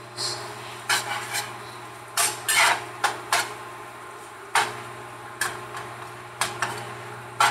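Microwave oven running with a steady low hum, over which come about a dozen irregular sharp clicks and scrapes.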